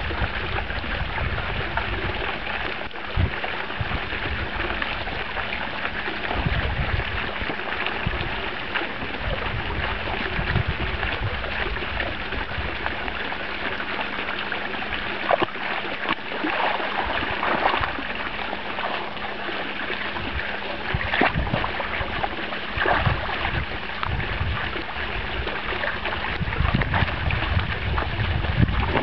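Small pond fountain jet splashing steadily, with scattered sharper splashes as a German Shepherd puppy paddles at and shoves a soccer ball in the shallow water. Irregular low rumbles of wind on the microphone come and go.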